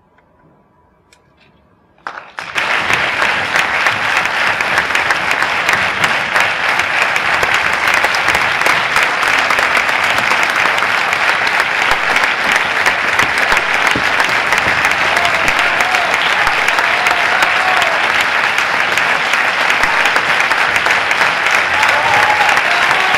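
Theatre audience applauding. The applause breaks out abruptly about two seconds in after a brief hush, then stays dense and steady.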